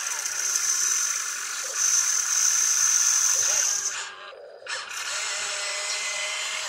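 Toy RC excavator's electric motors whining high and steady as the boom and bucket move. The whine cuts out about four seconds in and starts again, quieter, about a second later.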